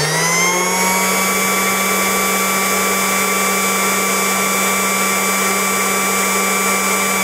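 Fuji Paudal sample mill's high-speed beater rotor running on a test run, a loud steady high whine after settling at full speed in the first second.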